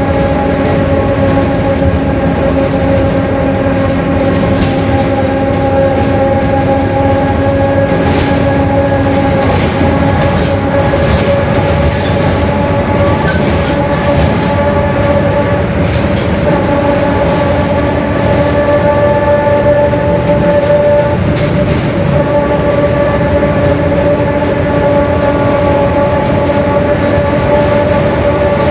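Mercedes-Benz OF-1721 Bluetec 5 diesel bus under way, its drivetrain giving a steady whine of near-constant pitch over the engine's rumble. The whine is the sign of a growling ("roncando") differential.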